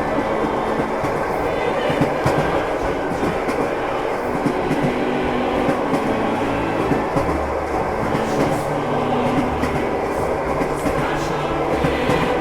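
Passenger train running, heard from inside the carriage: a steady rumble with the clickety-clack of the wheels over rail joints.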